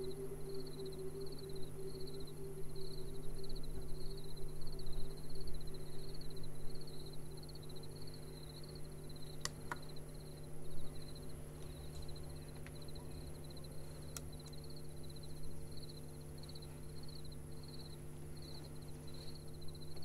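Crickets chirping in a steady pulsed trill, about two pulses a second, over the low steady hum of guitar amplifiers. Low held tones fade down over the first several seconds.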